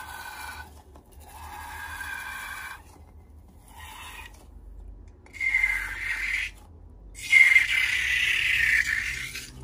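A cut rubber balloon filled with slime being squeezed, giving squeaky, squelching sounds as slime squirts out of the snipped tip. There are four squeezes, and the last two are louder.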